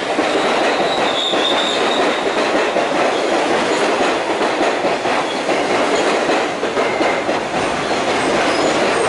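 R68A subway train running along the platform and slowing, with a steady clatter of wheels on rail and rapid clicking over the rail joints. A faint high wheel squeal comes in briefly about a second in.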